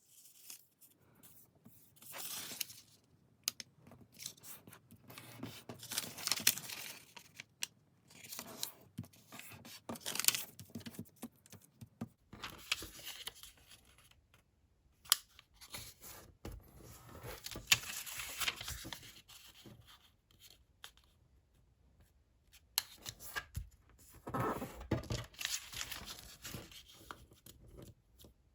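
Sheets of colored origami paper being handled and folded by hand: irregular rustling and crinkling, with sharp clicks as folds are pressed.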